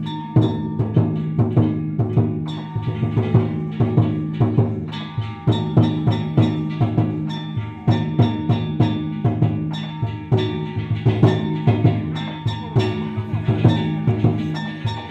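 Danjiri festival music: a taiko drum and metal gongs struck in a steady, driving rhythm, the gongs ringing on between strokes.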